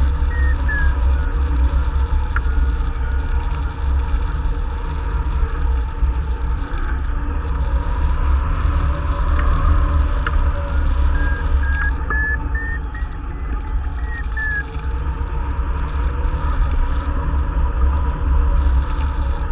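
Wind buffeting hard on the microphone of a hang glider in flight, a steady low rumble. Behind it a variometer's thin tone steps up and down in pitch, climbing about halfway through and falling again a few seconds later, the sound of the glider working lift in a thermal.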